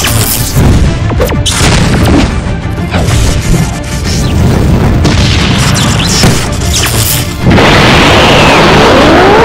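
Cartoon fight sound effects over music: a string of booms and crashing hits, then, about seven and a half seconds in, a loud steady rushing noise with rising tones, the sound effect of an energy aura powering up.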